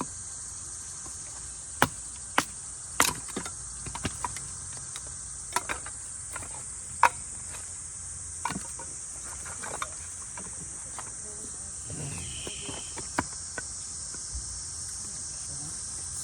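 Steady high-pitched chirring of crickets and other insects, with irregular sharp knocks and clicks every second or so from camp work close by.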